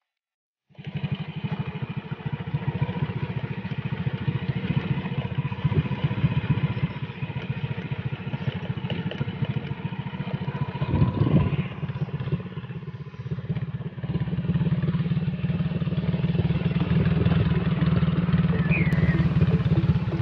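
Motorcycle engine running steadily while riding along a rough dirt road, cutting in suddenly about a second in. It surges briefly about halfway through and runs louder over the last few seconds.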